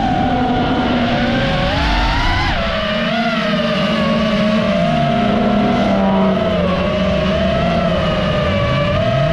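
FPV quadcopter motors whining steadily, their pitch wavering with the throttle. Beneath them, rallycross car engines rev, rising in pitch near the end.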